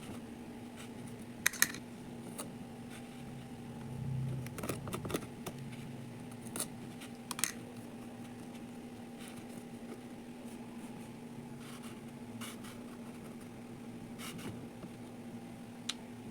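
Kinetic sand being handled and cut, giving scattered short clicks and scrapes, with a few clustered about four to five seconds in, over a steady low hum.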